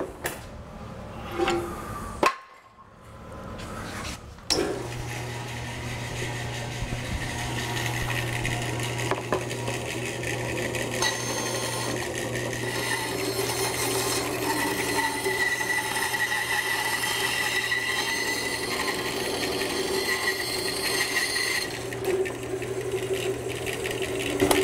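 A few knocks as the wooden workpiece is set on the table, then a bandsaw starts about four seconds in and runs steadily with a constant motor hum, its blade rough-cutting a curve through a thick wooden template blank.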